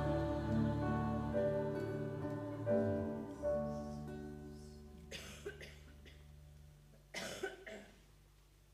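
A worship band's final chord on keyboard and guitars rings out and fades away over about five seconds. Then two short coughs, about five and seven seconds in.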